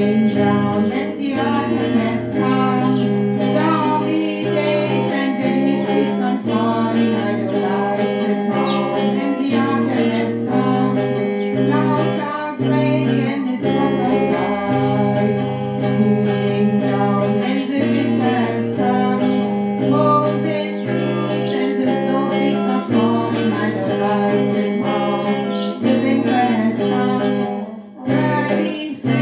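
A woman singing a song while accompanying herself on an electric guitar.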